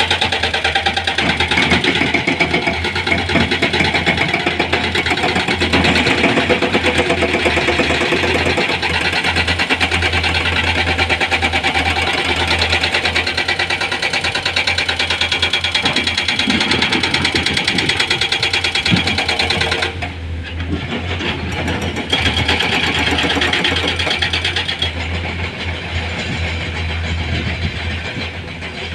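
Heavy diesel engine running steadily with a fast, even pulse over a low hum; about two-thirds of the way through the sound briefly turns duller and a little quieter.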